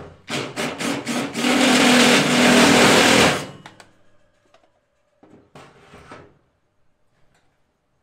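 Cordless drill working on the smoker's steel body while a bracket is being fitted: a few short trigger bursts, then a steady run of about two seconds that stops sharply. A shorter, softer noise follows a couple of seconds later.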